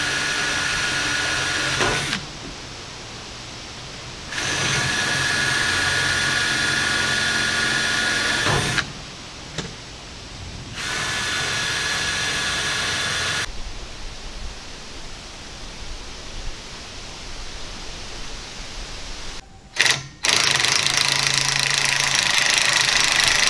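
Cordless drill driver running in four steady runs of about two to four seconds each, with pauses between them, spinning locking nuts down onto the quarter-inch all-thread bolts that hold PVC rod holders to the steel tube frame.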